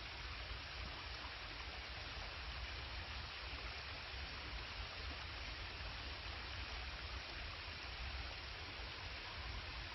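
A stream running steadily, an even rushing sound of flowing water.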